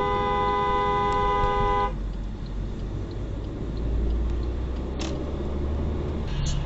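A car horn sounded once and held for about two seconds, a warning blast at a car cutting across at a roundabout. It is followed by steady engine and road noise from inside the car.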